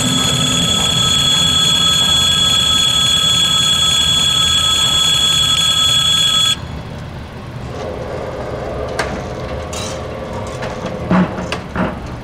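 Level-crossing electric bell ringing steadily over the rumble of a passing freight train, cutting off abruptly about halfway through. After that a low hum and a few sharp clunks as the crossing's road barrier plates go down.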